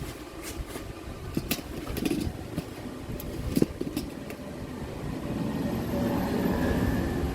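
Scattered metal clicks and knocks of tools and parts being handled. About five seconds in, a low rumble starts and builds, then holds.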